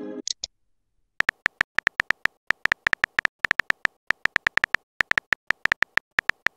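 Rapid keyboard-tap clicks of a texting app's typing sound effect, short sharp ticks at uneven spacing, several a second, as a message is typed. At the very start, the fading tail of a chime-like message-sent tone with two quick high blips.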